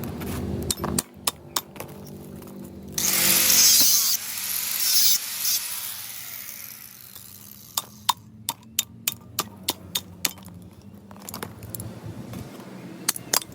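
A washing machine motor being taken apart with tools to get at its copper windings. There is a loud noisy burst of about a second about three seconds in, then a quick run of sharp metal knocks a few seconds later.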